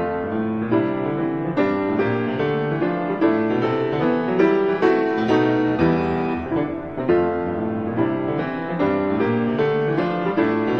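Background piano music, a run of sustained notes played one after another.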